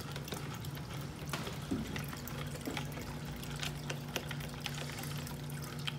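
Faint steady hum and trickle of water from running aquarium equipment, with a few light clicks of hard plastic as a bell siphon is screwed into a plastic bin.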